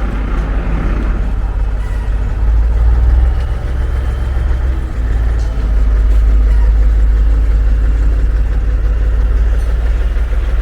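Street traffic: passing vehicles make a steady low rumble, which dips briefly about halfway through.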